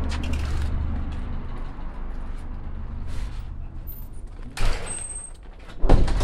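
Glass entrance doors being pushed open and swinging shut: a low rumble fades over the first couple of seconds, then two sudden door knocks about a second apart near the end, the second the louder.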